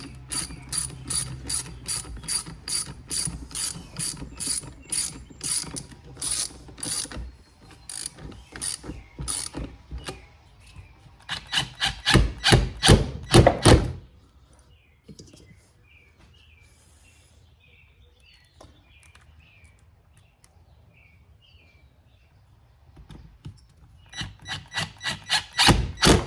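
Hand ratchet wrench clicking in runs as the carburetor mounting bolts on a chainsaw are tightened. There is a steady run of clicks at first, a louder, faster run about halfway through, a quiet pause, and another run near the end.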